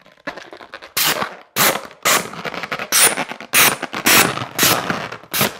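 Hand balloon pump inflating a 260 twisting balloon: about eight quick air strokes, roughly two a second, starting about a second in.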